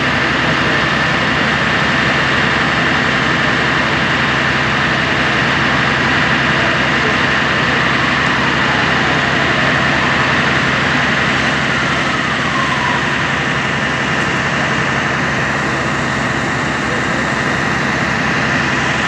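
Fire engine's diesel engine idling steadily: a constant low hum with an even higher-pitched whine over it.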